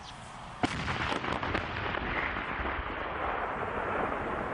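Tank firing its main gun: one sharp blast just over half a second in, followed by a few cracks and a long, loud noisy tail.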